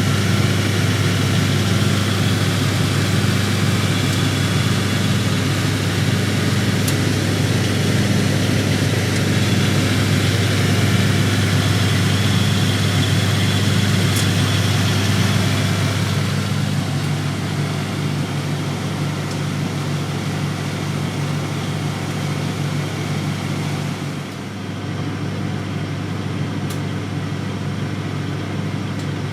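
Siemens Siwamat 960 washing machine in its final spin: a steady motor hum and whir of the drum turning at speed, easing somewhat about halfway through, with a brief dip near the end.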